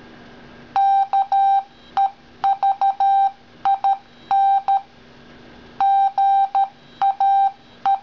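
Android phone's MorseRing ringtone for an incoming call: a single steady beep tone keyed on and off in Morse code dots and dashes, spelling out the caller's name. It starts about a second in, and there is a gap of nearly a second about two thirds of the way through.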